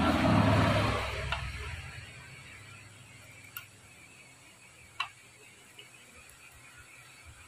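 A short rustling handling noise at the start, then a few small metallic clicks: a cutting bit being set into the boring head of a cylinder boring machine with a hex key. The two clearest clicks come about a second and a half apart.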